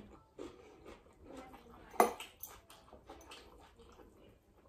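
Close-up chewing and mouth sounds of someone eating rice by hand, with soft squishes as her fingers work the rice on the plate. One sharp, loud sound about two seconds in stands out above the rest.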